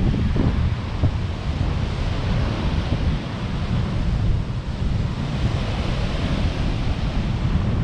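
Ocean surf washing on the shore, its hiss swelling in the second half, with wind buffeting the microphone in a steady low rumble.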